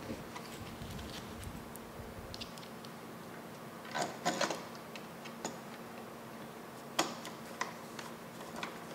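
Hand screwdriver turning screws into a metal computer case: scattered faint clicks and ticks, a small cluster about four seconds in and a sharper single click about seven seconds in.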